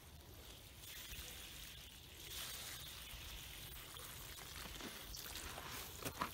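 Water from a hose-fed watering lance pouring into the soil of a pepper seedling's planting hole through plastic mulch: a faint, steady rush that grows stronger about two seconds in. A couple of short clicks come near the end.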